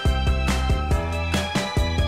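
Instrumental background music with a steady drum beat over held notes and a low bass.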